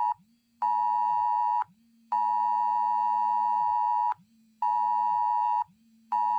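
Emergency alert receiver sounding its alarm for a NOAA Weather Radio required monthly test: a steady electronic tone near 1 kHz, beeping on and off about once a second with short gaps, one beep held a little longer.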